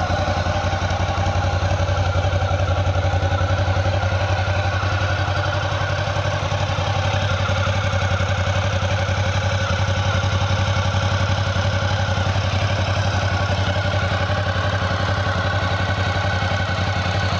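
Ducati GT1000 Classic's air-cooled L-twin idling steadily through its original Ducati exhaust, with an even, unchanging beat and a not so sporty tone.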